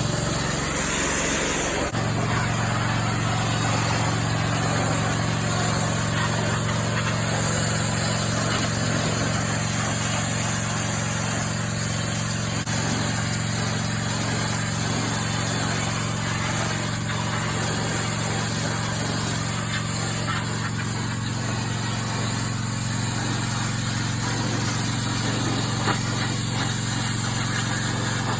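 Pressure washer running steadily under load, its motor and pump droning under the hiss of the high-pressure water jet spraying the composite deck.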